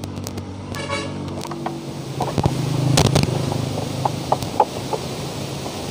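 A motor vehicle engine running, a steady hum that swells to a peak about three seconds in as the vehicle passes. A few light clicks of a taillight bulb socket being fitted into its housing come after the peak.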